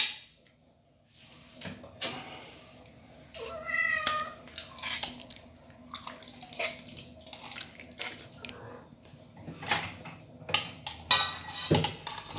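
A cat meows once, about four seconds in, over repeated clicks and scrapes of a spoon mixing food in a steel bowl.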